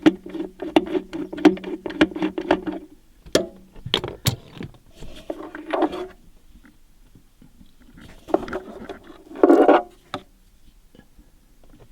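Ratchet wrench with a 12 mm socket and extension clicking in quick, even strokes for about three seconds as it loosens the battery retaining clip bolt. A few sharp knocks follow, then scraping and handling noise as the clip is worked loose.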